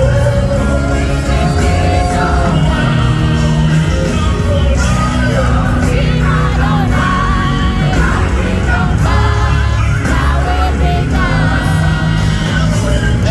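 Live gospel worship music with a steady band and wordless singing or vocalising over it, with some shouts from the crowd.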